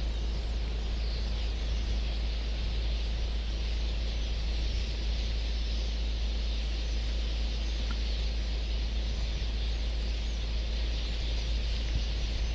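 Outdoor bush ambience: a steady low rumble under a constant high-pitched hiss, with faint bird calls.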